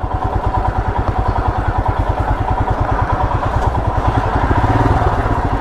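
Motorcycle engine running under way, a steady fast pulsing exhaust with a constant whine, getting a little louder near the end.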